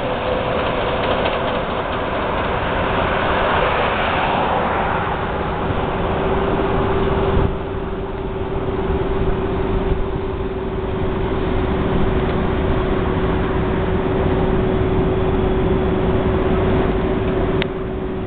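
Amtrak shuttle train and road traffic going by: a rushing sound that drops off sharply about seven seconds in, over a steady hum, then the lower noise of traffic passing.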